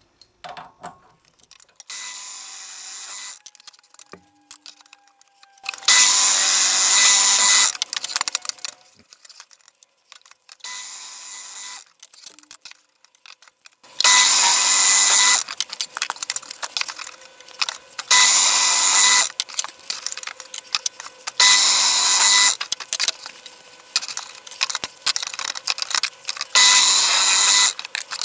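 Benchtop drill press boring 35 mm holes in plywood with a Forstner bit: a series of separate cutting bursts, each a second or two long, about seven in all, five of them loud, with quieter gaps between.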